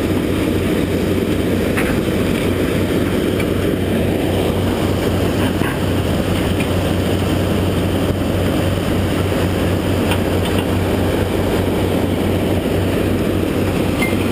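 Eagle UM45 mobile impact crusher running steadily under load, its diesel engine powered up as it crushes concrete rubble, with a constant low hum and a few faint knocks.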